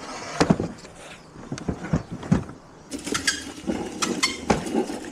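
Irregular knocks and clanks from a wooden wire reel being turned as No. 2 bare copper ground wire is pulled off it, then metallic clinks and rattles as the wire is laid out.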